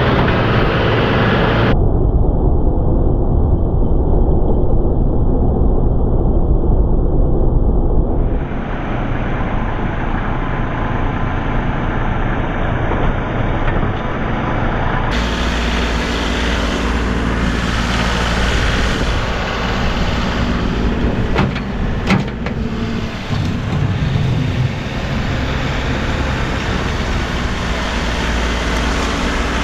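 Tractor engine running steadily, heard across several spliced clips, with a few sharp knocks about 21 to 22 seconds in.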